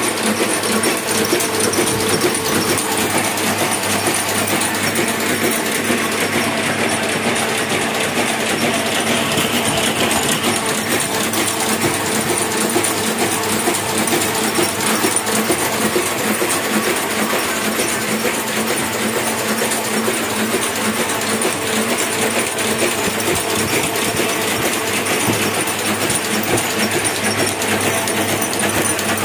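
Hamada 600 offset printing press running and feeding sheets: a steady, fast mechanical clatter with a steady hum underneath.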